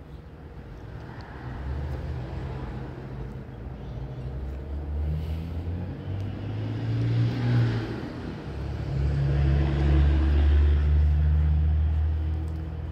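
Motor vehicle engine rumbling past, swelling in the middle and fading near the end.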